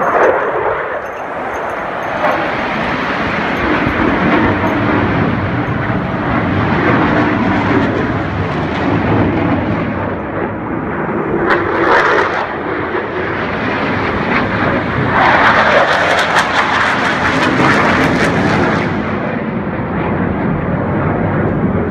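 Air-show aircraft flying overhead, a loud continuous engine noise that swells briefly about halfway through and more strongly for a few seconds later on as the planes pass.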